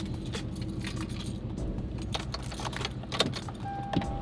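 Duramax LLY V8 turbodiesel idling with a straight pipe to a bed stack, heard from inside the cab as a steady low rumble. Irregular light clicking and rattling runs over it, with two sharper knocks near the end.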